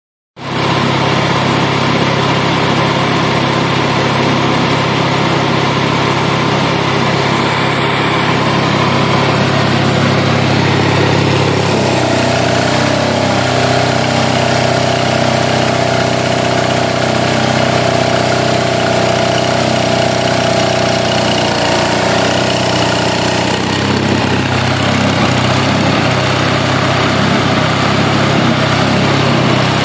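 Gasoline engine of a Lindsay 40 CFM tow-behind air compressor running steadily on its first run after its carburetor and fuel lines were cleaned. About twelve seconds in a steady higher whine joins and holds for about ten seconds, then drops out.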